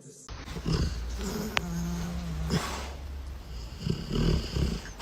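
A dog vocalizing with low, rumbling noises: one held low note, then a few short ones near the end.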